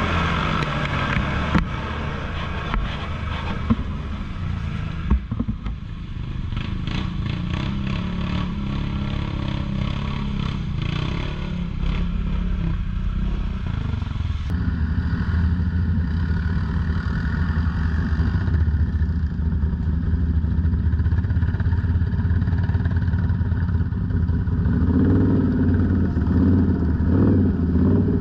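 ATV engine running while riding over rough trail, with a few sharp knocks in the first several seconds. The engine's pitch rises and falls near the end.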